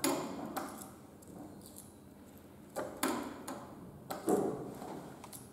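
A few sharp clicks and light knocks at irregular intervals: one at the start, a pair near the middle, and the loudest about four seconds in.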